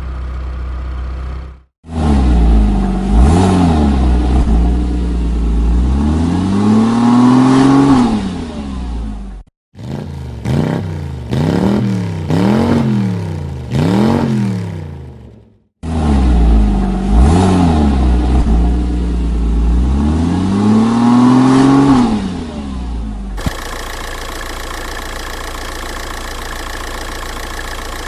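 Car engine recordings in sequence: the engine revs up and down several times, then gives a quick run of about five short throttle blips, then revs up and down again, and finally settles into a steady idle. The recordings are separated by abrupt cuts.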